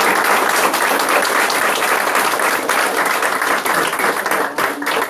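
Audience applauding, a dense, steady clapping that thins out into scattered single claps near the end.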